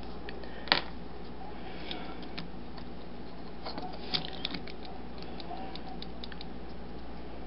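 Plastic clicks and small taps from a toy accessory being handled and adjusted, with one sharp click about a second in and another about four seconds in, over a low steady hum.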